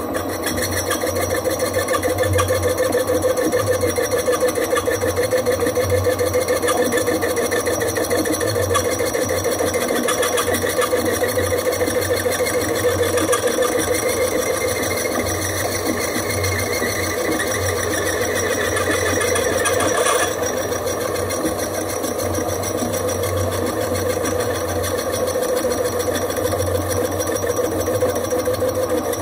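Holbrook C8 metal lathe running steadily under power while a carbide tool takes a light cut of about ten thou on a metal bar.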